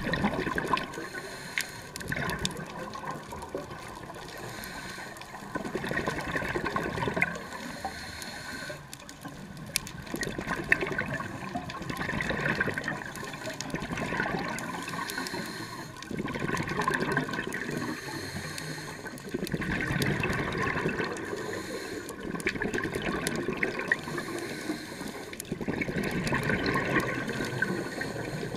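Scuba diver breathing through a regulator underwater: exhaled bubbles gurgling and rushing in swells every few seconds over a steady water hiss.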